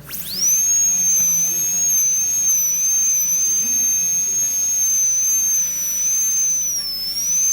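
High-speed air-turbine dental handpiece spinning up with a quickly rising whine, then running at a steady high-pitched whine while the bur cuts along the occlusal fissure for a class I amalgam cavity preparation. Its pitch sags briefly near the end before recovering.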